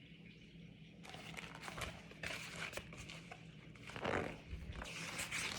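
Faint, irregular rustling and crinkling from a picture book and its pages being handled, starting about a second in.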